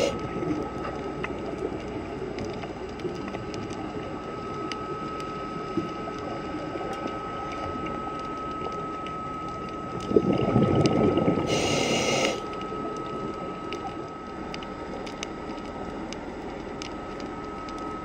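Underwater sound of a scuba diver's breathing through a regulator: one loud rush of breath and bubbles about ten seconds in, ending in a high hiss. Underneath, a scattered crackle of small clicks and a steady thin tone.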